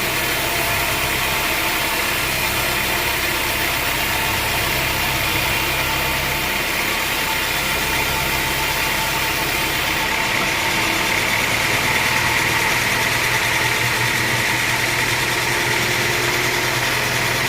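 Engine-driven sawmill machinery running with a steady drone. Its low note shifts about six and again about ten seconds in, and it gets slightly louder after the second shift.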